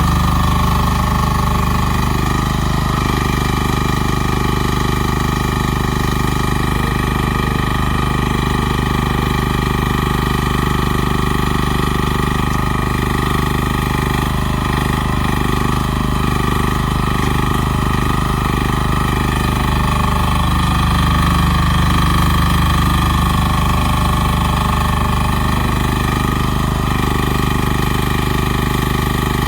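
Rhinoceros Windstorm XN10 mini excavator's engine running steadily as the machine digs, with small shifts in its note as the work goes on.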